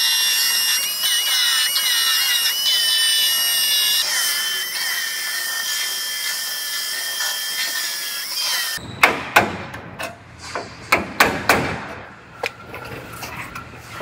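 Pneumatic belt file sander running against the steel corner structure of a truck bed, a high steady whine that sags slowly in pitch as it bears on the metal. About nine seconds in it stops and gives way to a dozen or so irregular sharp knocks.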